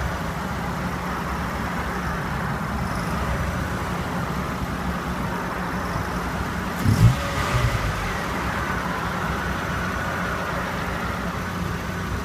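Nissan Note E11's CR14 four-cylinder engine running steadily at the front right wheel, with an extraneous squeak of unknown origin. A thump about seven seconds in, with a weaker one just after.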